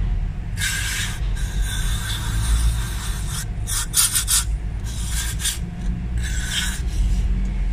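Aerosol carburetor cleaner sprayed in several short hissing bursts onto a removed EGR valve, as the final cleaning step for its carbon deposits. A steady low hum runs underneath.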